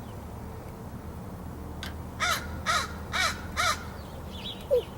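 Crow cawing, four caws about half a second apart, followed by a few softer calls.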